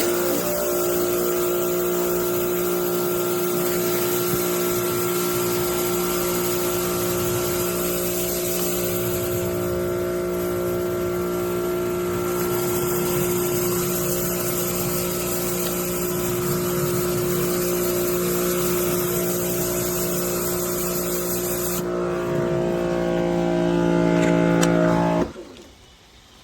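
Electric pressure washer running with a steady motor and pump hum under the hiss of the spray. Near the end the spray hiss stops, the hum drops in pitch and grows louder for a few seconds, then the machine cuts off abruptly.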